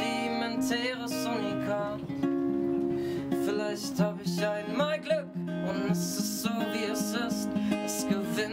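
Acoustic guitar strummed in steady chords with a man singing over it, played live.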